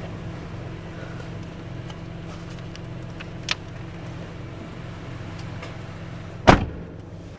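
Low, steady car engine rumble as heard from inside the cabin, with a short click about halfway through and a louder sharp click near the end.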